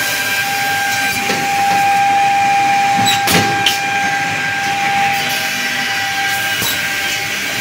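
Varol Makina VB-8 edge banding machine running, a steady hissing din with a constant motor whine through it. A few short knocks come about three seconds in.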